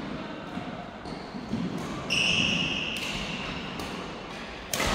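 Badminton rally in a large echoing sports hall: rackets striking the shuttlecock with sharp, echoing cracks, the loudest hit near the end. A court shoe squeaks briefly on the wooden floor about two seconds in.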